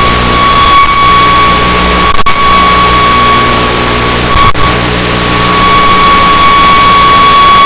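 Loud steady static hiss with a constant high-pitched whine and a low hum underneath; the hum breaks off for a moment twice, about two seconds and four and a half seconds in.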